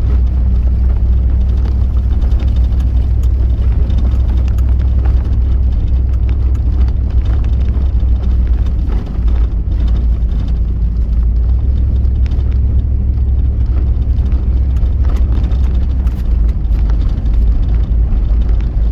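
Off-road vehicle driving over a rough dirt track, heard from inside the cab: a steady low rumble of engine and tyres, with scattered small knocks and rattles from the bumps.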